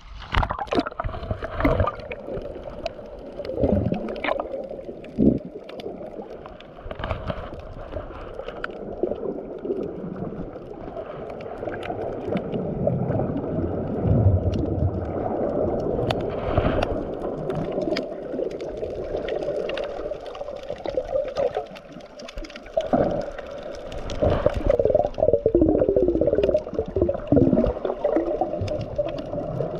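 Water gurgling and sloshing close to the microphone, with scattered knocks, louder in the last third.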